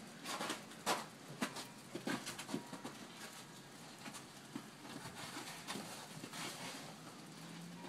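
Irregular crunches and clicks on icy, crusted snow: footsteps of a man and a dog moving about, and chunks of ice being handled and tossed.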